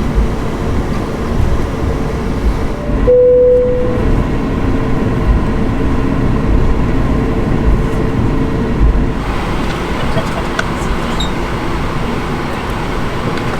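Steady rumble and hiss of an Airbus A220-300 heard from inside the cabin, with a brief steady tone about three seconds in; about nine seconds in, the noise grows brighter and fuller.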